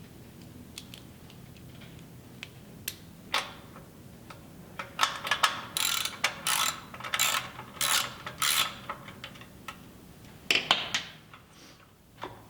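Ratchet wrench with a 10 mm socket clicking in short strokes, tightening the bolts of a Honda engine's recoil starter cover; a run of about six quick strokes in the middle, with a few more near the end.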